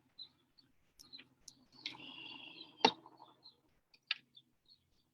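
Faint bird chirps scattered throughout, with a sharp click about three seconds in and a smaller one a second later.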